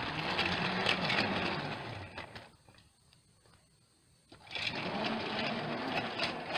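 Battery-powered toy train whirring along plastic track, its small motor humming. It runs for about two and a half seconds, goes quiet, and comes back from about four seconds in.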